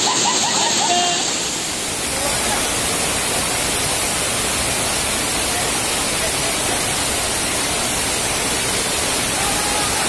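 Waterfall cascading over rocks: a steady rush of falling water that dips slightly about two seconds in. Faint voices call out near the start and again near the end.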